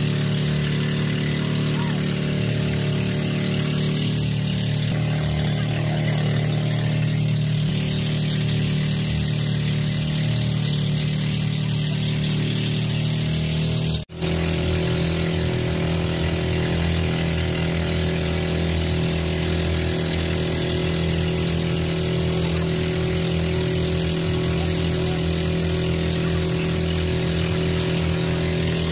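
Engine of a motorized outrigger boat (bangka) running steadily under way, with a split-second dropout about halfway through.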